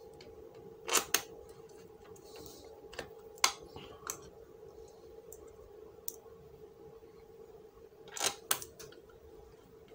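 Scattered clicks and taps of a screwdriver and small screws on a laptop's plastic bottom case as the case screws are driven back in, with sharper double clicks about a second in and again near the end, over a faint steady hum.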